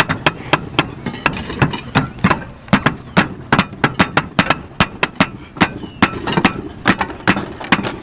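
Hammers driving nails to fasten roof tiles: sharp blows, several a second, in quick, uneven succession.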